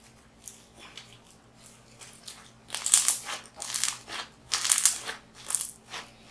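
Textured slime being squeezed and pressed by hand, giving about five short crackling crunches starting around three seconds in.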